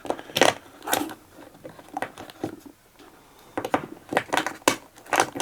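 Packaging being handled during an unboxing: scattered clicks, knocks and crinkling of cardboard and plastic, with a brief lull about three seconds in.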